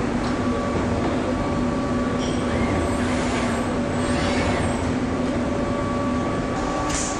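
Steady hum and rumble of automated stator-production machinery, with a few brief hisses about three and four seconds in and a sharper short hiss near the end.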